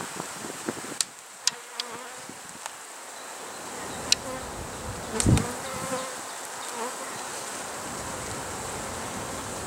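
Honeybees buzzing over an opened hive during inspection: a steady hum with single bees droning past in wavering tones. A few sharp clicks and, a little after five seconds in, a thump as the wooden frames are handled.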